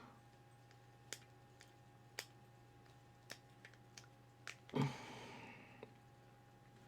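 Sparse light clicks of small screws, parts and a screwdriver being handled during model-kit assembly, with a louder handling knock and rustle near five seconds in. A faint steady hum runs underneath.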